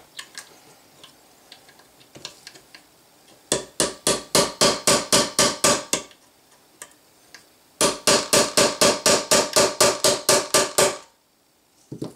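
Hammer tapping a steel pin punch to drive a rivet out of a Saiga rifle's stamped steel receiver: two runs of quick, ringing metal taps, about six a second, with a pause between. The rivet has not yet gone through.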